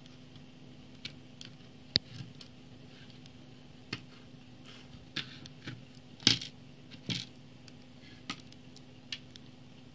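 Scattered plastic clicks, taps and short rattles of an e-reader being taken apart by hand, its display and circuit-board assembly lifted out of the plastic frame. There is a sharp click about two seconds in, and the loudest clatter comes a little past the middle.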